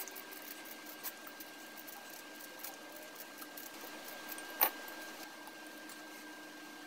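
Faint scraping and small clicks of a hand peeler cutting a spiral of zest from an orange, with one louder sharp knock a little over halfway through.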